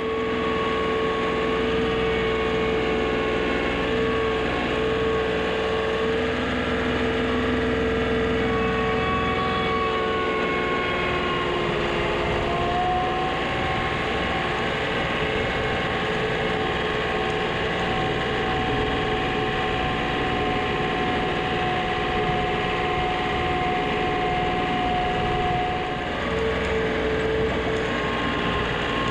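John Deere compact tractor's diesel engine running steadily as the tractor drives along the road, with steady whining tones that shift in pitch about twelve seconds in.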